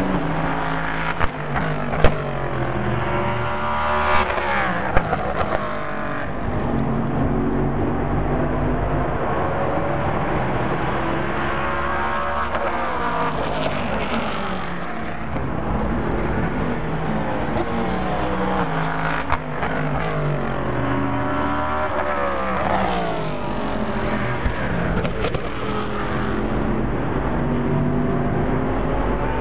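Endurance race cars lapping through a corner one after another, their engine notes rising and falling as each passes, over a continuous roar from cars elsewhere on the circuit. A few sharp cracks stand out, mostly near the start.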